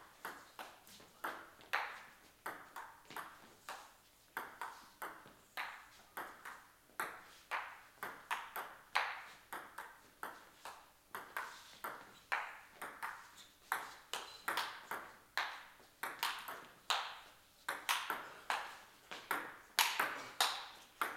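Table-tennis rally: the celluloid/plastic ball clicks sharply off the table and off rubber-faced bats, about two to three hits a second. One bat has short attacking pimples and the other long defensive pimples.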